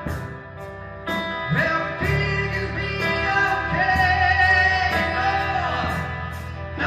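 A band playing a song with guitar and bass, and a voice singing a wavering melody that comes in about a second and a half in.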